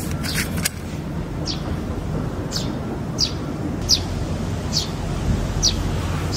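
A bird calling again and again: a short, high note that falls in pitch, about once a second. Under it runs a steady low rumble, and a few quick clicks sound right at the start.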